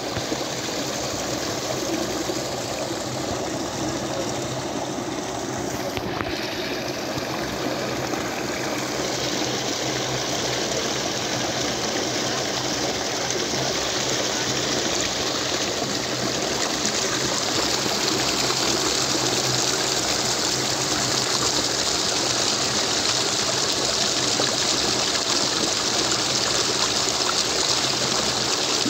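Water rushing and splashing over a concrete spillway ledge, a steady rushing noise that grows louder and hissier about a third of the way in and again past the middle.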